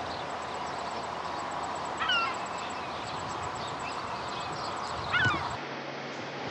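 Two loud bird calls, about two seconds in and again about five seconds in, over a steady outdoor hiss with faint high chirping. The outdoor sound cuts off abruptly near the end to a quieter background.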